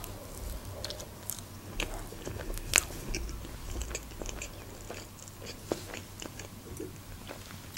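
A person chewing a mouthful of soft chocolate cake with cream, with short mouth clicks scattered through the chewing, the sharpest a little under three seconds in.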